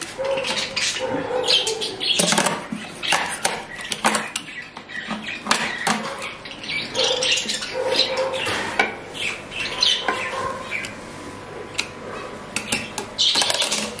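Old badminton racket strings being cut out with a box cutter: a run of sharp clicks and snaps, irregular and close together, as the strings part.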